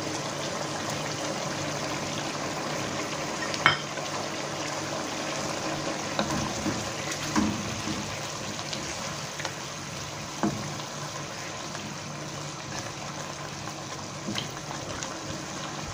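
Mutton curry simmering in a nonstick karahi with a steady hiss, while a wooden spatula stirs it, scraping and knocking against the pan a few times.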